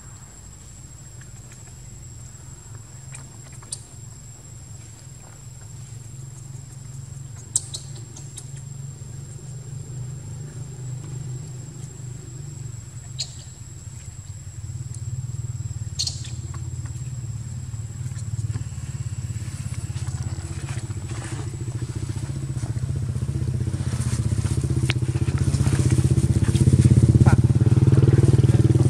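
Low, steady engine rumble that grows gradually louder, loudest near the end, with a faint steady high-pitched tone and a few scattered clicks.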